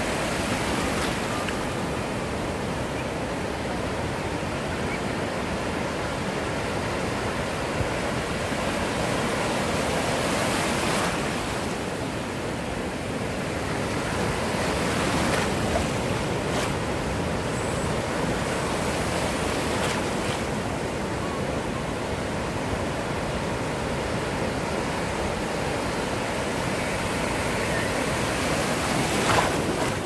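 Ocean surf breaking on a beach: a steady rush of water that swells several times as waves come in, loudest near the end.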